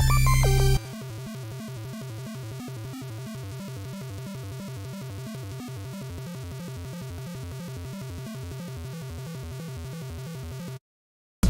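Background electronic music: loud until about a second in, then a quieter section with a fast, even pulse, which cuts out to silence for a moment near the end.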